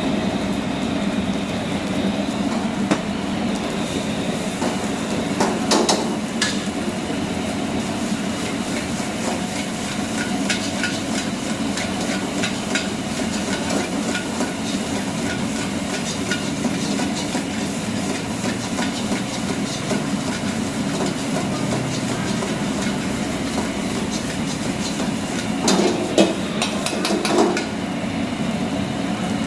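Metal spatula repeatedly clanging and scraping in a wok while frying rice, over a steady hiss, with a few louder knocks about six seconds in and again near the end.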